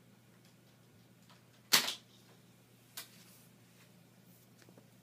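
Plastic clacks as a toddler handles a desk telephone on the floor: a sharp loud clack about two seconds in and a lighter click a second later, over a low steady hum.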